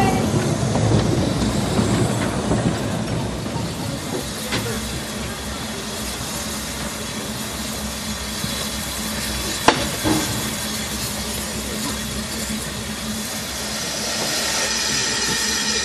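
Narrow-gauge steam locomotive Dolgoch, an 0-4-0 well tank, standing at the platform with steam hissing steadily under a low hum. A sharp metallic click comes about ten seconds in, and the hiss grows louder near the end.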